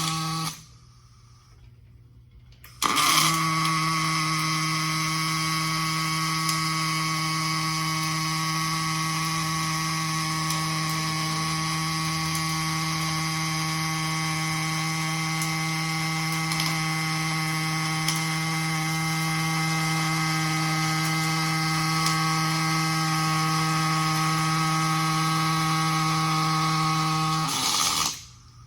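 Pulsed-spray MIG welding arc from a robot-held torch on 0.270-inch steel: a steady pitched hum from the pulsing power source over a hissing crackle. It strikes sharply about three seconds in and runs until it cuts off shortly before the end, finishing with a crater fill.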